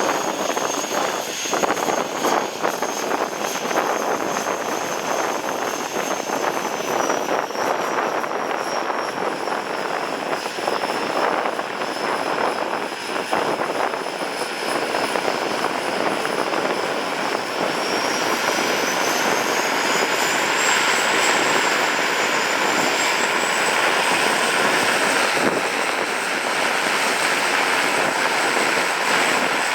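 Seaplane's propeller engines running steadily while the plane taxis on the water. About two-thirds of the way through, a high whine rises in pitch and the sound grows a little louder as power comes up.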